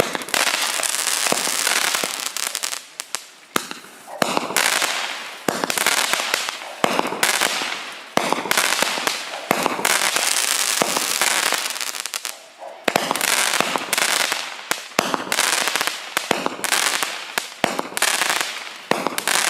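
A 96-shot consumer firework cake of 0.3–0.5 inch calibre firing: a fast string of sharp shots and crackling bursts, with short gaps between volleys.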